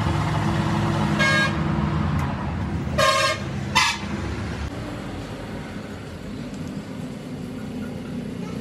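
A vehicle horn honks three times: a short toot about a second in, a longer one about three seconds in, and a quick one just after. Under the horn a steady low motor hum runs and fades out around the middle.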